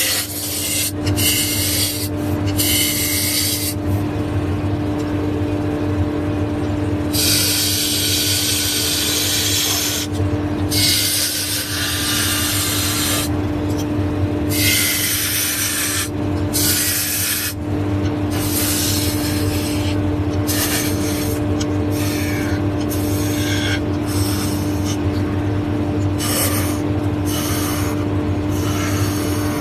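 A power tool's motor running with a steady hum, while it works wood in repeated stretches of rasping that start and stop every second or few seconds.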